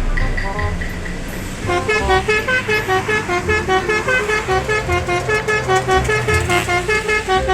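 Bus telolet horn tune: a quick melody of short horn notes over a steady thumping beat, coming in strongly about two seconds in.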